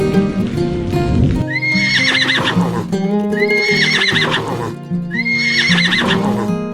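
Background music with an animal's call heard three times, each about a second long and wavering in pitch.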